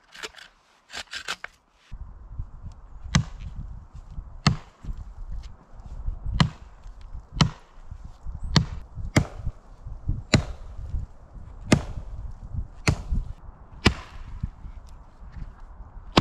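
Wood being chopped with a blade: about ten sharp strikes, roughly one a second, beginning about three seconds in, over a low rumble. A few light knocks come before the chopping starts.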